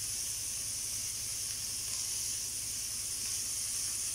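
Chicken skewers sizzling steadily in a hot grill pan on a gas hob while being brushed with marinade, with a low steady hum underneath.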